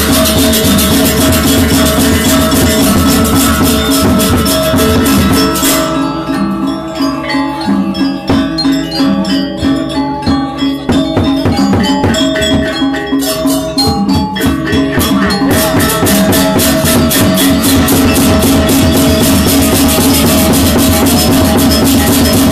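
Music with steady drumming and fast rattling percussion; from about a quarter of the way in to about two-thirds, the rattling top drops away, leaving spaced melodic notes over the drum, before the full beat comes back.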